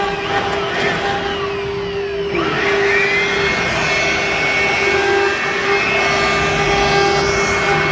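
CNC router spindle running steadily as its bit carves grooves into a door panel, a constant whine under the cutting noise. The pitch of the drive motors shifts as the head moves: falling glides at first, then about two and a half seconds in a higher tone rises and holds.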